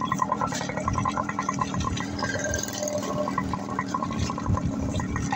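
Yamaha RX100's two-stroke single-cylinder engine running steadily under way, with tyre noise on a wet, muddy dirt road.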